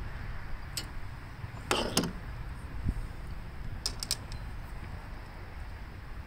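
A mower's plastic air filter housing creaking and clicking as it is worked loose by hand. There is a click just under a second in, then a scraping creak about two seconds in, then a quick run of sharp clicks about four seconds in.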